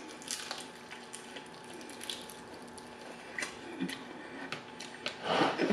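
Close-up eating sounds of crispy fried chicken being bitten and chewed: wet mouth sounds with small, scattered crackles from the crunchy breading, and a louder stretch of chewing noise near the end.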